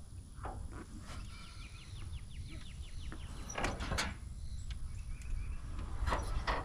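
A dead-engine Satoh S-550G tractor rolling across a wooden trailer deck, with scattered clunks and creaks from its wheels and frame, loudest about three and a half, four and six seconds in. A quick run of light ticking comes early, and a steady low rumble sits under everything.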